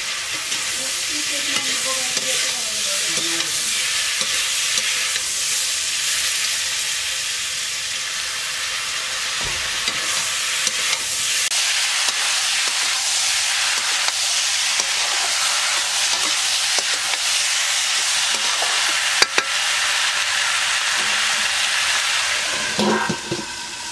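Chopped eggplant and tomato sizzling as they fry in oil in a metal wok, with a metal ladle scraping and clicking against the pan as they are stirred. A sharp knock about 19 seconds in is the loudest moment.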